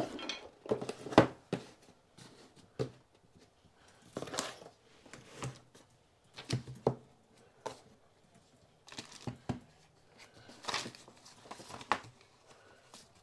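Small cardboard boxes being slid and set down on a tabletop and paper booklets handled: a string of irregular knocks and short rustles, the sharpest knock about a second in.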